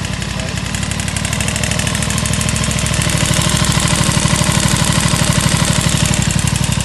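Aprilia RS660's parallel-twin engine idling steadily just after start-up, with the knocking noise the owner is recording to point out.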